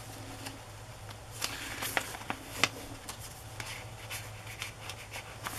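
Paper rustling and light taps as pages and tucked-in paper pieces of a handmade junk journal are handled and turned, in scattered, irregular bursts over a low steady hum.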